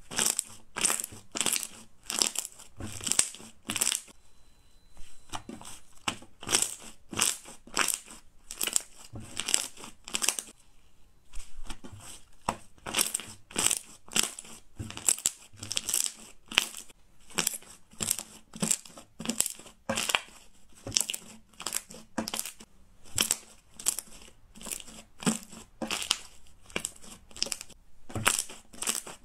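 White slime pressed, folded and rolled under the hands, giving a run of crisp, crinkly squishing clicks at about two a second, with a brief pause about ten seconds in.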